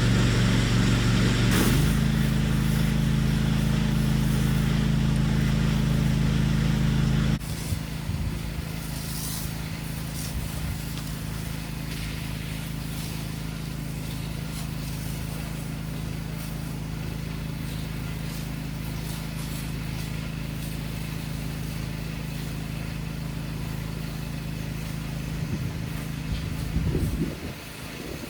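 Pressure washer engine running steadily at a constant speed. About seven seconds in it suddenly becomes quieter, then keeps running evenly, and near the end it changes and dies away.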